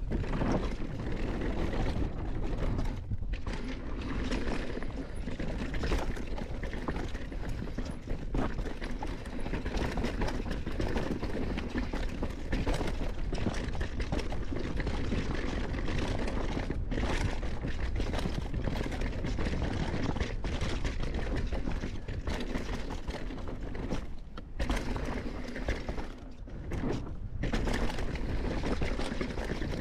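A mountain bike ridden fast down a rough dirt trail: tyres rattling over rocks and roots, with the chain and frame clattering over a constant low rumble. The noise drops off briefly a few times.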